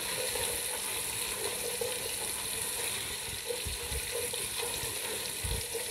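Julienned carrots sizzling in hot oil in an aluminium pot as they are stirred with a wooden spoon: a steady hiss, with a couple of soft low knocks near the end.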